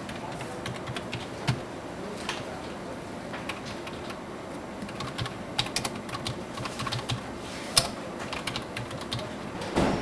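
Typing on a computer keyboard: irregular keystrokes in short runs, busiest from about five and a half seconds in, with one sharper, louder click near eight seconds, over a steady room hum.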